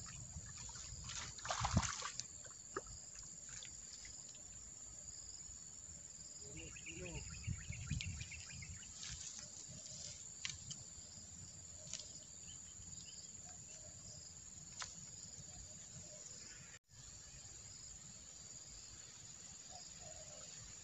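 Insects droning steadily at a high pitch, with faint repeated chirps, over a quiet outdoor background. There are occasional soft clicks and knocks, and the sound drops out for an instant about three-quarters of the way through.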